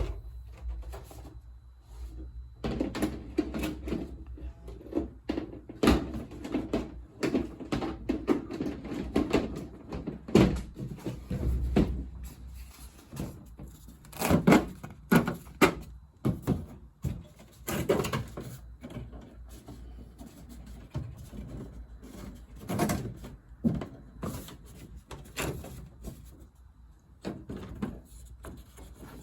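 Irregular knocks, clicks and rattles of things being handled and set down, with rustling between them.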